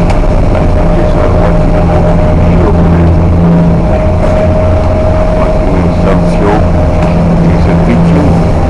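A ship's engines running with a loud, steady drone and a constant higher hum over it, heard from inside the passenger cabin while the vessel is under way.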